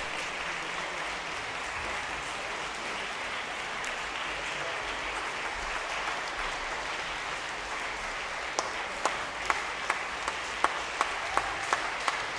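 Concert-hall audience applauding a symphony orchestra's bow. About two-thirds of the way in, loud individual claps fall into a steady beat of about two to three a second over the general applause.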